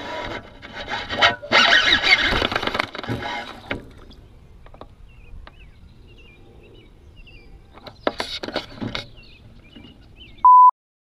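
A cast with a rod-mounted camera: a loud rush of air and line for about three seconds as the rod swings, then quieter with faint high chirps, a few sharp rod-handling knocks around eight seconds, and a short loud electronic beep near the end.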